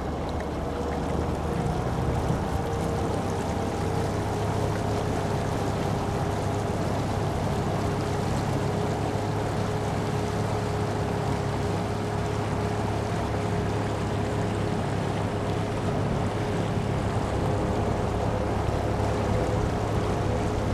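A boat motor running steadily at low speed. It makes a constant low hum with a steady higher tone above it, over water and wind noise.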